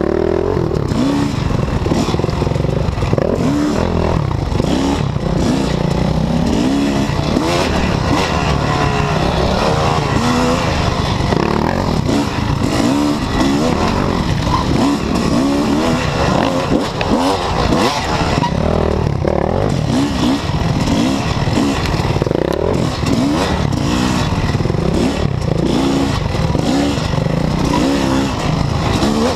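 Yamaha YZ250 two-stroke dirt bike engine under hard riding, its pitch rising and falling over and over as the throttle is worked on and off.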